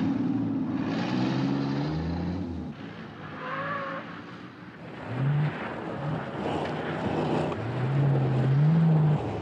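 Car engines revving hard, their pitch rising and falling as the cars accelerate, loudest near the end with a climbing engine note.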